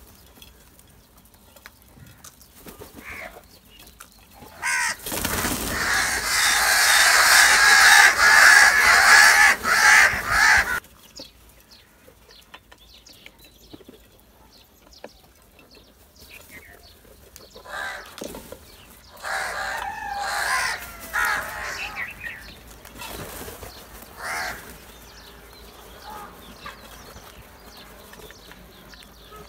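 House crows calling: a loud, dense stretch of overlapping calls lasting about six seconds, then quieter, scattered calls later on.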